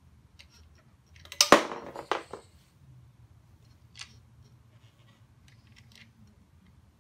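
A quick cluster of sharp clicks and clatter about a second and a half in, then a single click near four seconds: small bolt hardware handled and set in place while a crash-bar mounting bolt is fitted by hand at the motorcycle's footpeg bracket.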